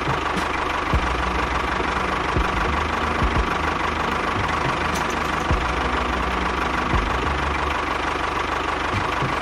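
Small engine of a homemade mini tractor running steadily, with a steady whine and a few sharp knocks.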